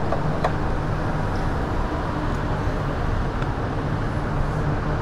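Steady low drone of a running vehicle with road noise, with a couple of faint clicks in the first half-second.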